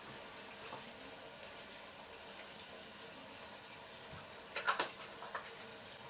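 Browned braising steak frying quietly in a pot, a faint steady sizzle. About four and a half seconds in comes a quick cluster of clicks and light knocks, then one more click.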